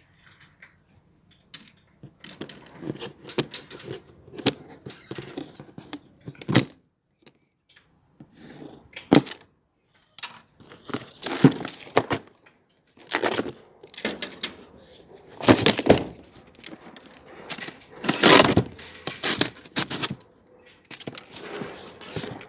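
Packaging and parts being handled during an unboxing: irregular clicks and knocks with several louder spells of rustling and crinkling, like plastic wrap or cardboard being opened and moved.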